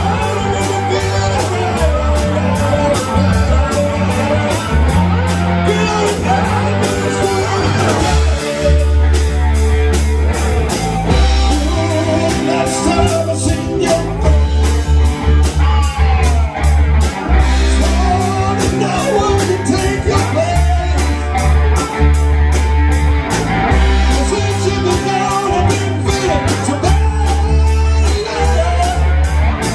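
Rock music: a singer over electric guitar, bass and drums, with a steady beat.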